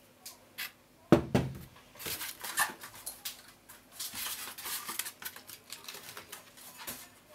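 A single heavy thump about a second in as the aluminium-housed 1.5 kW CNC spindle is set down on the bench, followed by several seconds of irregular rustling, scraping and light knocks from the polystyrene foam packaging being handled.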